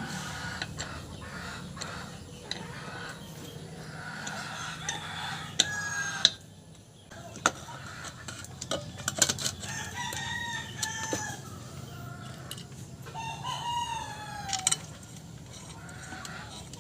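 Rooster crowing and chickens clucking, with long arching calls about ten and fourteen seconds in, over scattered sharp clicks and taps.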